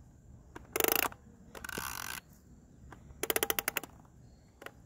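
Toy John Deere hedge trimmer worked by its pull cord, giving short separate bursts of its engine sound, one of them a fast rattling run of clicks.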